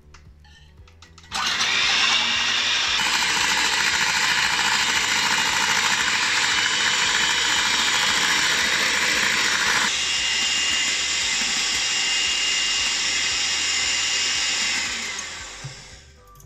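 Hamilton Beach electric hand mixer whipping an egg white in a stainless steel bowl. The motor starts suddenly a little over a second in, runs steadily with the beaters whirring through the white, and winds down and stops near the end.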